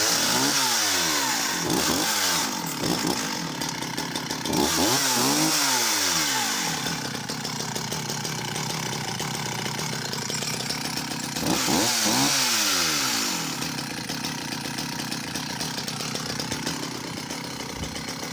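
Vintage Sachs Dolmar 111 two-stroke chainsaw running and being revved three times, each time falling back in pitch to a steady fast idle. It starts and stops abruptly.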